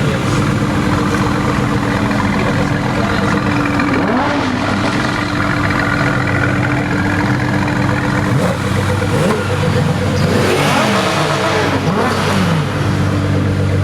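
Mercedes-AMG GT S twin-turbo V8 engines idling, with a quick rev about four seconds in and several revs in quick succession in the second half.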